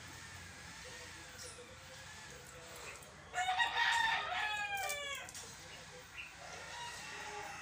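A rooster crowing once, a single call about two seconds long that begins a little past the middle and falls in pitch at its end.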